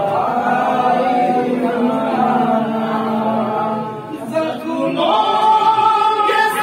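A group of voices chanting in unison through a microphone, a religious chant. It drops off briefly about four seconds in, then holds one long, steady note.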